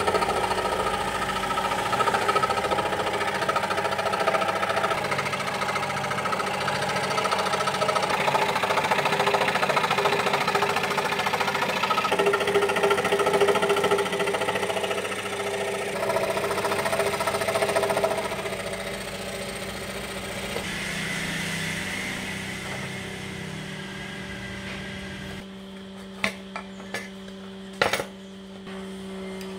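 Scroll saw running, its reciprocating blade cutting a curved line through a wooden blank. The noise grows quieter about two-thirds of the way through and stops, leaving a low hum. A few sharp clicks follow near the end.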